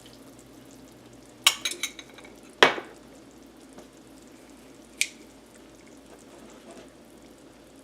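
Gravy simmering in pots with a faint steady bubbling while cornstarch slurry is stirred in, a spoon and cup clinking against the pans: a few quick clinks about a second and a half in, one sharp knock just before three seconds, and a single click at about five seconds.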